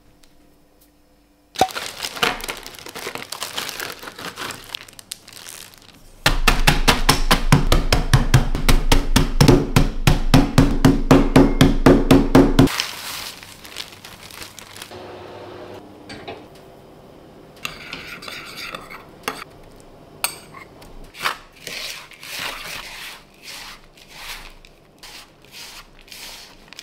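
Making a biscuit-crumb crust: a plastic bag crinkling, then a loud run of rapid, evenly spaced knocks for about six seconds that stops abruptly, then quieter rustling as crumbs are poured from a zip-lock bag into a plastic bowl and rubbed by hand.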